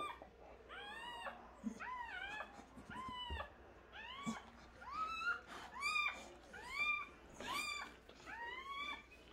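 Newborn puppies crying in a whelping crate: repeated high-pitched mewing cries, each rising and then falling, about one a second.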